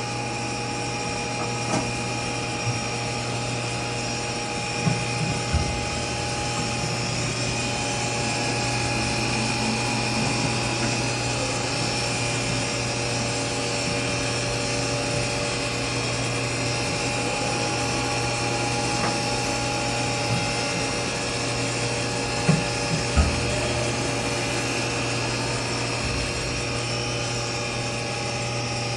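Haas VF-2 CNC vertical machining center running its spindle at about 3,500 RPM, a steady hum and whine, while the axes move through helical interpolation. A few short knocks stand out about five seconds in and again about twenty-two seconds in.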